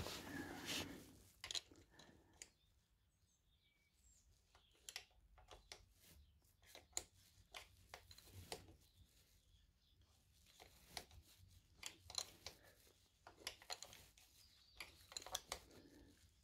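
Faint, scattered clicks and light scrapes of a 10 mm spanner and the chain adjuster bolt on a pit bike's swingarm as the bolt is turned, with quiet pauses in between.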